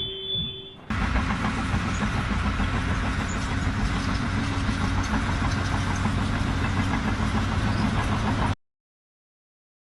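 An engine running steadily, starting about a second in and cutting off suddenly near the end.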